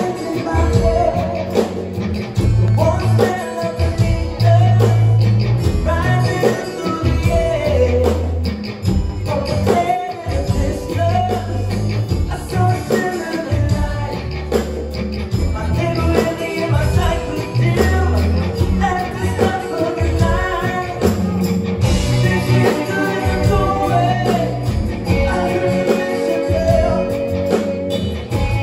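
A live rock band playing a song with a male lead singer, heard from the audience seats of a theatre: a steady pulsing bass beat under the sung melody.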